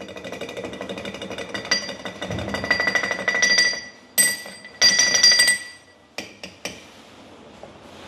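Stainless-steel blind shaker seated on an espresso portafilter, tapped rapidly by hand: a fast run of light metal knocks that rings at a few steady pitches for about four seconds. Then come two short ringing metal knocks and a few light clicks.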